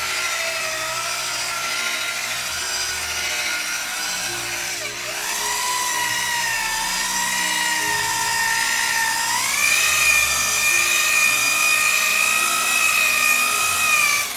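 High-speed rotary buffer with a wool cutting pad running on car paint, cutting with compound: a steady electric motor whine. About five seconds in the pitch drops sharply and climbs back higher, and about nine seconds in it steps up again.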